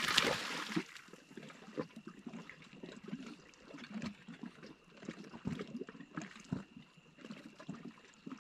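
A short splash of water at the start, then small irregular lapping and trickling water sounds.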